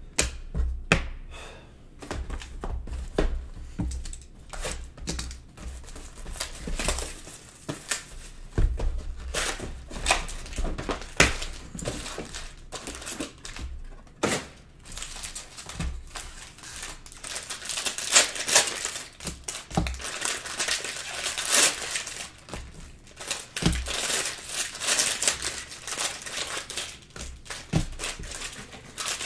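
Sealed trading-card boxes and wrapped card packs being handled and torn open, with plastic wrappers crinkling and tearing and short knocks as boxes and packs are set down on the table. The crinkling is densest in the second half.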